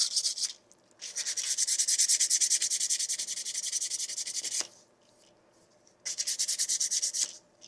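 Sandpaper rubbed by hand along the edge of a 3D-printed plastic claw, in rapid back-and-forth strokes that clean up its rough edges. The strokes come in three spells, with a short pause just after the start and a longer one past the middle.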